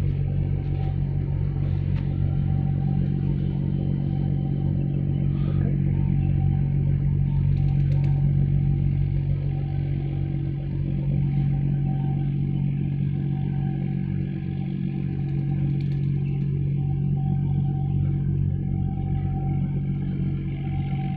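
Steady low engine drone with a constant hum, running unchanged throughout.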